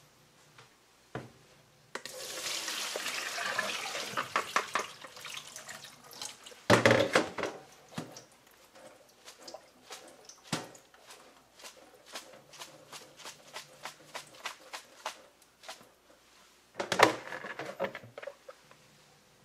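Water pouring and splashing into a stainless steel sink as soaked acacia flowers are drained in a plastic colander. There is a steady pour about two seconds in, louder splashes near seven seconds and near the end, and scattered drips and small knocks in between.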